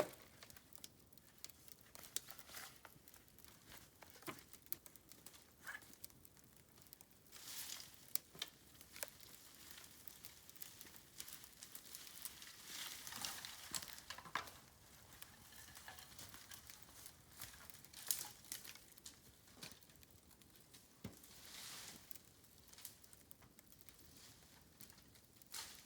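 Bamboo burning in a campfire, crackling faintly with scattered sharp pops. A few stretches of louder rustling crackle come and go, and one pop stands out about eighteen seconds in.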